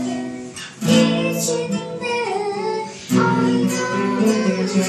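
Live acoustic music: a strummed acoustic guitar, with a clarinet and a young girl singing along. Fresh chords are struck about a second in and again about three seconds in.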